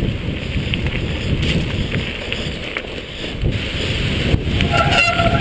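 Mountain bike descending a wet trail at speed: wind rushing over the handlebar-mounted camera, over the rumble and rattle of the bike's tyres and frame on rough wet ground. A pitched sound comes in near the end.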